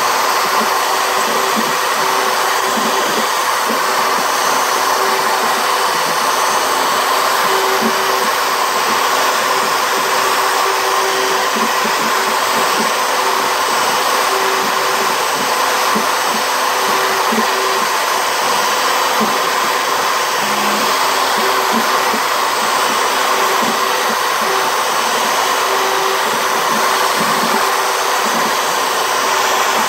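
CNC router spindle running steadily while its bit engraves letters into plywood: a constant motor and cutting noise, with a tone that comes and goes as the bit moves through the cut.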